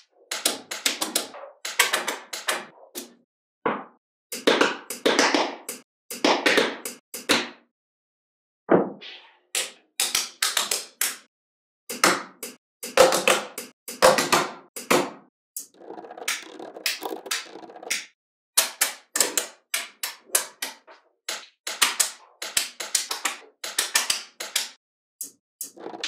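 Small magnetic balls clicking and snapping together, in quick runs of sharp clicks with short pauses between.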